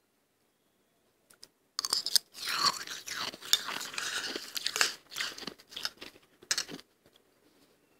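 Freezer frost being bitten and chewed: a dense run of soft, irregular crunching that starts about two seconds in, after a couple of faint clicks, and stops near the end.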